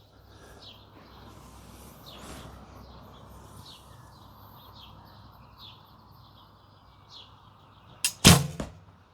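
Small birds chirping over a steady breezy hiss. Near the end comes one loud sharp snap of a recurve bow being shot, with a second, softer knock a fraction of a second later.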